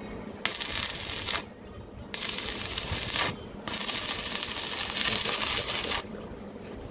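Stick-welding arc from a Jasic ARC-250I inverter welder crackling in three stretches, the last the longest, each starting and cutting off abruptly as the arc is struck and broken.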